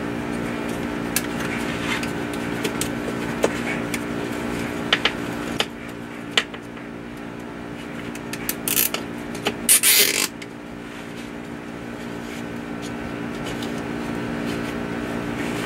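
Hands working a sump-pump sensor probe into place on a PVC discharge pipe: scattered small clicks and knocks, then a short loud rasping burst about nine to ten seconds in. A steady low machine hum runs underneath.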